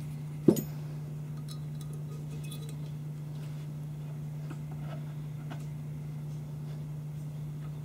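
One sharp metal knock about half a second in, then a steady low hum with a few faint ticks as a 2/0 taper reamer is turned by hand in the front sight block's taper-pin hole.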